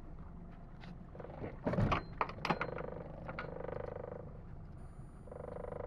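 A large leerfish (akya) hauled over the side of a small boat onto the deck: a cluster of loud knocks and thumps about two seconds in, followed by a buzzing drone that stops and starts again near the end.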